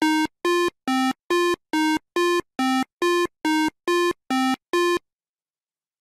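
Short synthesizer tune of about a dozen brief, evenly spaced beeps, alternating between a few low-middle pitches. It stops about five seconds in.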